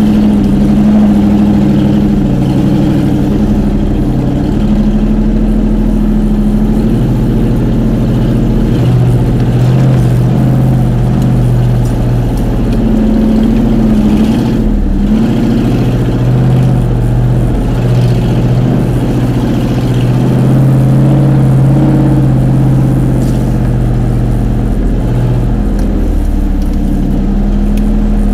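Off-road vehicle's engine running at low speed as it crawls along a rough trail, its pitch stepping up and down every few seconds with the throttle.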